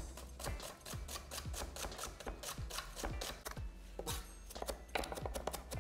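Chef's knife finely chopping spring onions on an end-grain wooden chopping board: a quick, steady run of knife strikes, several a second.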